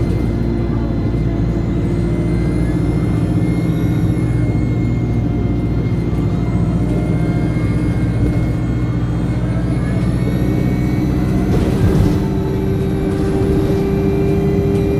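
Alexander Dennis Enviro200 bus engine running under way, heard from on board, with a high-pitched turbocharger whine that rises and falls several times as the bus pulls and eases off. A brief burst of hiss about twelve seconds in.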